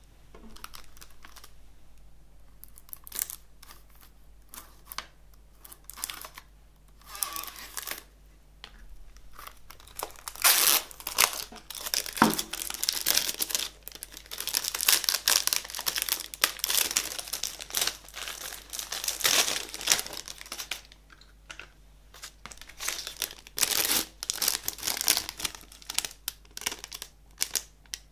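CD packaging being torn open and crinkled by hand: a run of crackling, tearing rustles, busiest in the middle and again near the end, between scattered handling clicks.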